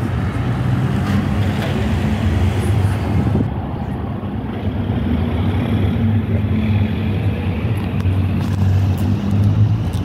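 Urban street traffic: car engines running and passing, a steady low hum.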